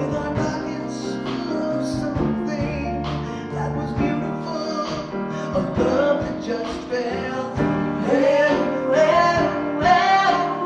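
Live band music: a grand piano, upright bass and drums accompanying women singing a ballad in harmony.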